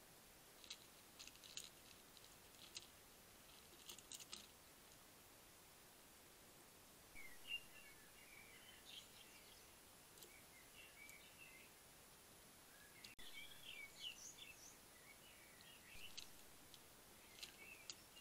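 Faint, quiet crunching clicks of a hedgehog chewing dry kitten kibble at a feeding tray, with faint high chirping sounds through the middle.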